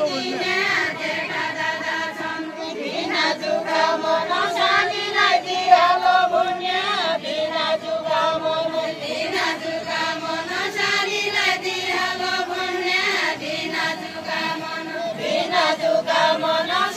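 A group of villagers singing a Deuda song together in unison, in long held phrases that rise and fall.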